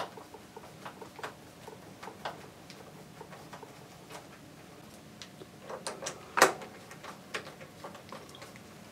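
Scattered small metallic clicks and ticks of a screwdriver working screws out of an oscilloscope's rear casting, with a short louder clatter a little past the middle.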